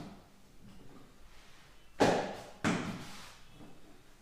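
Two sharp thumps about two-thirds of a second apart, each dying away quickly, as hands handle a stack of rolled dough sheets on a floured work surface.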